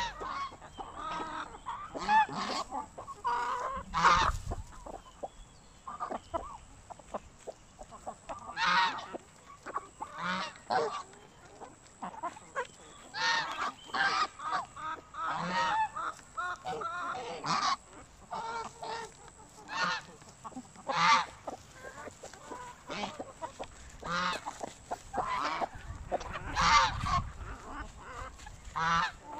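Domestic geese honking again and again, short calls from several birds overlapping irregularly.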